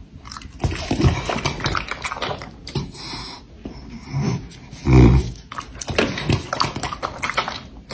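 A bulldog chewing and eating pieces of raw meat, with irregular wet, crackly mouth sounds and one louder, deeper sound about five seconds in.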